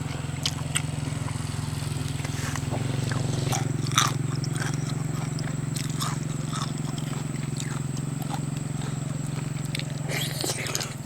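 A steady low hum with scattered short clicks and knocks over it; the hum grows a little louder about three seconds in.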